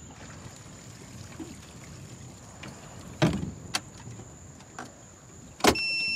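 Knocks and a heavy thump on a small boat, then near the end a sharp click followed by a steady electronic beep lasting about half a second.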